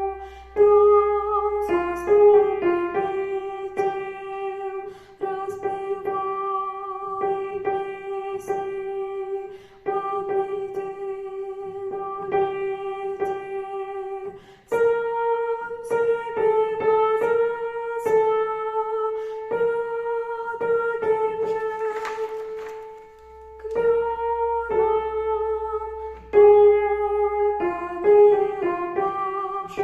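Music: a melody played in long, steady held notes on a keyboard-type instrument, with short breaks between phrases.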